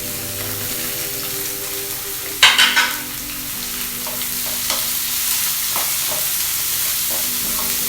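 Chopped onion and carrot frying in hot oil in a pan, sizzling steadily while being stirred. A sudden louder burst of sizzling comes about two and a half seconds in, and a few light clicks of the spatula follow.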